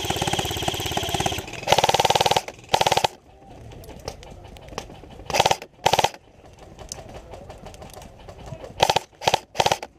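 Airsoft guns firing on full auto: a fast run of rapid clicks for the first couple of seconds, then short bursts about three, five and a half, six and nine seconds in.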